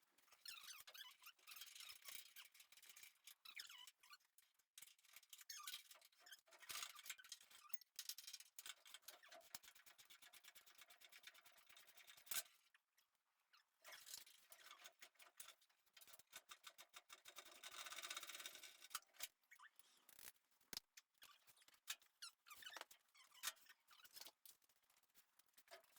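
Near silence broken by faint, scattered clicks, squeaks and scraping.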